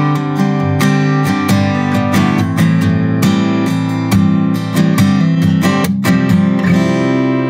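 Studio recording of an acoustic guitar strummed in steady rhythmic chords, played back. Near the end the strumming stops and the last chord is left ringing.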